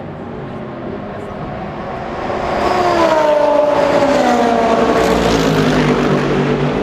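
GT3 race car engine accelerating out of the pit lane and passing close by: the engine note grows loud about two and a half seconds in and slides down in pitch as the car goes past.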